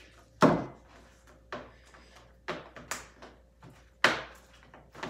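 Hands kneading and pulling sticky glue slime: a series of sharp wet slaps and pops, about five of them, the first the loudest.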